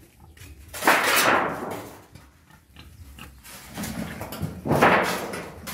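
Pigs grunting: two loud, rough grunts, one about a second in and another near the end.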